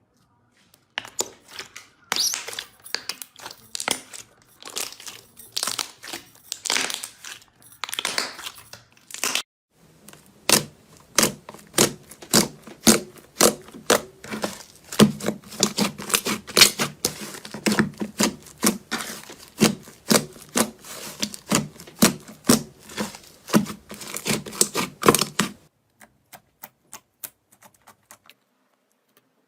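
Slime being squeezed and worked by hand, giving a dense run of quick pops and clicks that stops about 25 seconds in, followed by a few scattered clicks.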